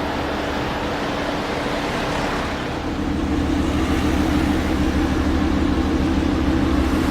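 Sports car engine running steadily with a pulsing low note, getting louder about three seconds in.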